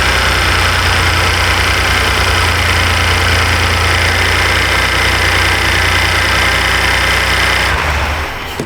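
Ford 3.5L EcoBoost twin-turbo V6 idling just after a start, heard from inside the cab. This truck has a brief startup misfire from a cylinder 4 injector circuit fault. The engine noise falls away near the end.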